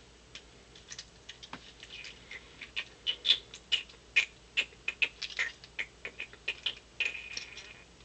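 Light, irregular plastic clicks and taps of a Transformers action figure and its small accessory being handled, sparse at first and coming thicker after about a second.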